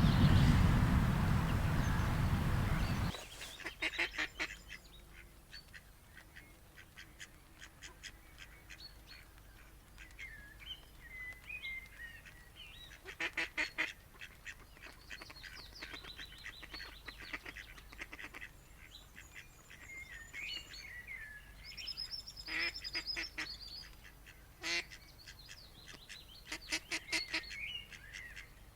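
A steady rush of noise cuts off about three seconds in; then waterfowl at the loch call in short runs of rapid, honking calls, several times, while small birds sing with warbling phrases between them.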